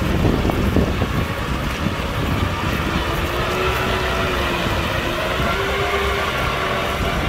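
Kubota tractor's diesel engine running steadily under load while plowing, its pitch wavering slightly in the second half. A few rough bumps come in the first second.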